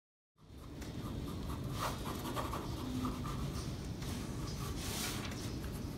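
Pencil scratching across drawing paper in irregular strokes, one longer stroke near the end, over a low room rumble.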